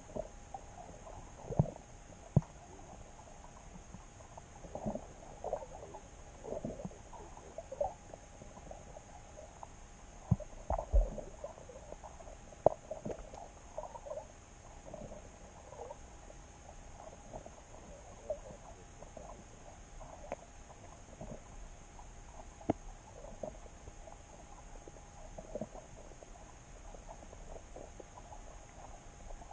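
Underwater sound heard through a submerged camera: irregular muffled knocks and clicks over a faint steady hiss, the strongest few in the first half.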